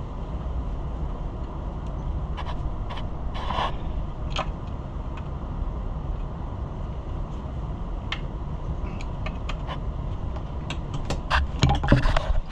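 Light clicks and clinks of metal chainsaw parts and bolts being handled and fitted, over a steady low rumble. Near the end there is a busier, louder run of clicks and knocks.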